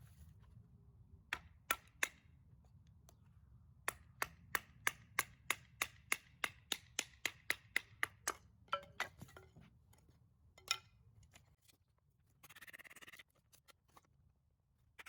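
A run of sharp taps or knocks: a few scattered ones, then a steady series of about three a second for several seconds, one more later, and a short hiss-like burst near the end.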